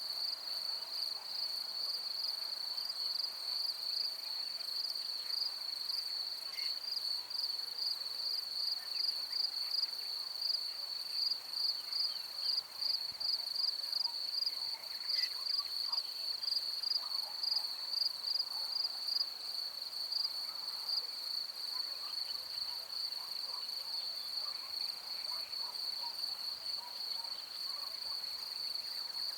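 Field insects, crickets by their sound, chirping in a steady, even pulsing trill, with faint scattered chirps in the background.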